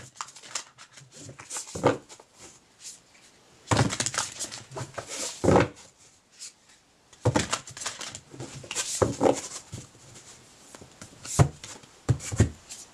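A deck of oracle cards being shuffled and handled by hand: several short bursts of cards rustling against each other, with pauses between, and a couple of sharper taps near the end.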